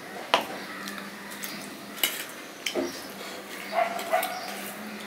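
Fingers mixing rice and curry on a stainless steel plate, with a few sharp clinks of metal against metal, the loudest about a third of a second in. Two short yelp-like sounds come close together about four seconds in.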